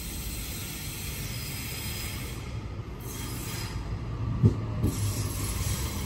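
Sydney Trains electric passenger train running through the station, a steady rumble slowly building, with two sharp clunks about four and a half seconds in.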